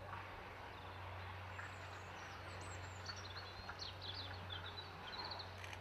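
Small birds chirping and trilling in quick high notes over a steady low hum of background noise.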